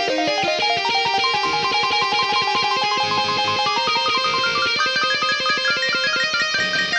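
Instrumental music: a guitar playing a fast, even run of picked notes, the melody stepping gradually upward.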